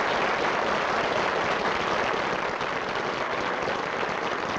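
Theatre audience applauding: steady, dense clapping that eases off a little after about two seconds.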